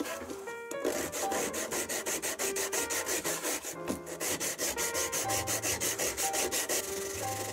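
A stick of graphite rubbed rapidly back and forth on the sandpaper of a sanding block, grinding it into powder. The scraping strokes start about a second in and run evenly at about five a second.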